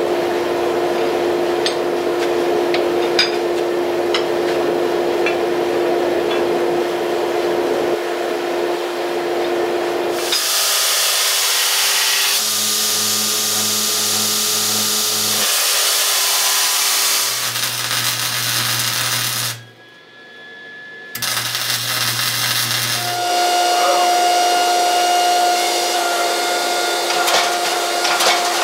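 Hydraulic forging press and shop machinery running during a forge weld of a sword billet: a steady machine hum with hiss, changing partway through to a lower pulsing hum in short stretches as the press works, then back to a steady higher hum near the end. A brief dip in level comes a little before the two-thirds mark.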